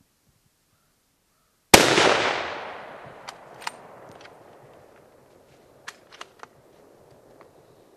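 A single rifle shot from a .300 WSM rifle fired offhand, a sharp crack a little under two seconds in followed by a rolling echo that dies away over about three seconds. Several short sharp clicks follow.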